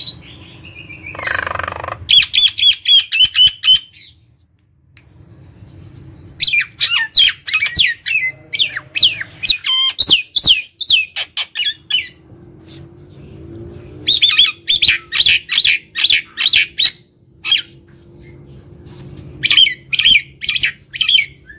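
Common myna calling in bouts of rapid, loud, sharp repeated notes, several a second, broken by short pauses, with one harsher drawn-out squawk about a second in.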